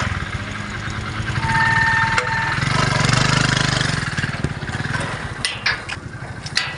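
An engine running steadily with an even low pulse, swelling about three seconds in, with a short steady tone about two seconds in. Near the end come several sharp metal clinks and knocks from the level-crossing gate's lock and latch being handled.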